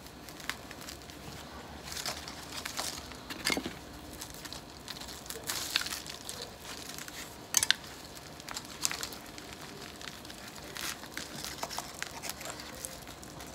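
Gloved hands pulling apart a camellia root ball: irregular crackling and tearing of soil and fibrous roots, with a few sharper clicks.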